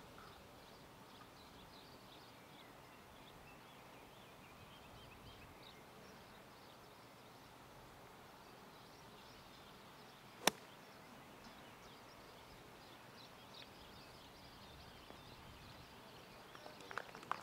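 A golf iron striking the ball on an approach shot: one sharp click about ten seconds in, over faint outdoor background with scattered high chirps.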